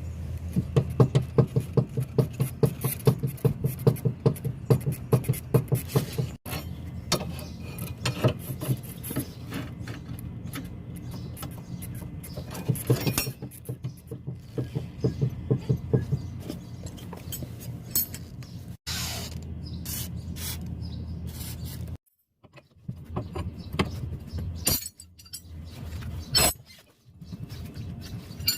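Hand tools working on a golf cart's tie rod end: runs of rapid, regular clicking and metal clanks over a steady low hum, broken off sharply several times.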